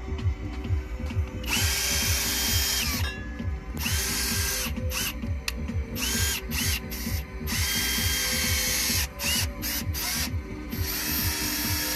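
A small power tool motor runs in repeated bursts, some a second or more long and some brief, each with a whine that rises as it spins up and drops as it stops. Background music with a steady beat plays underneath.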